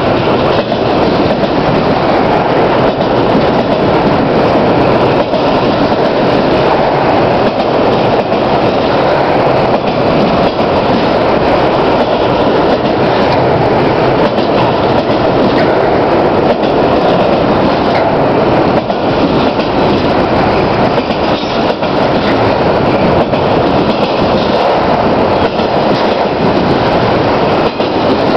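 Autorack cars of a fast CSX freight train rolling past close by: a steady, loud rumble of steel wheels on rail, with scattered clicks as the wheels pass over the rail joints.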